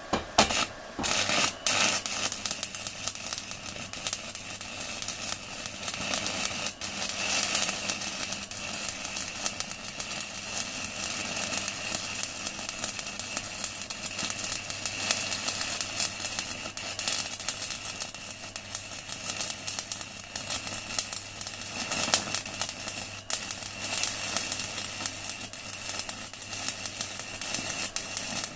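Manual stick-welding arc from a 4 mm UONI electrode on an inverter welder set to 160 A. A few short bursts as the arc is struck in the first second or two, then a steady, dense crackle as the electrode burns.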